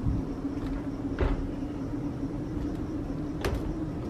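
Brass pull handle on a closed wooden double church door being gripped and pulled, giving a dull knock about a second in and a sharper click near the end, over a steady low hum.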